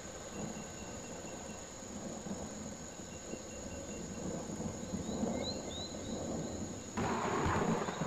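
Rainforest ambience: a steady high drone of insects over a low rumbling. A couple of short bird chirps come about five to six seconds in, and about seven seconds in a sudden louder rushing noise sets in.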